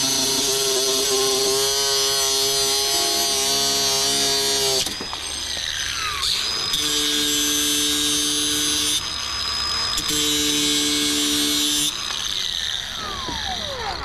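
Cordless angle grinder's cut-off wheel slicing through a steel garage door torsion spring in three bursts, a long first cut and two shorter ones. The motor's whine falls away as it winds down about five seconds in and again near the end.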